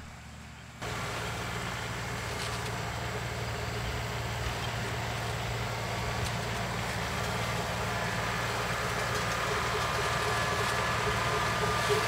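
John Deere compact tractor's diesel engine running steadily. It comes in about a second in and grows gradually louder.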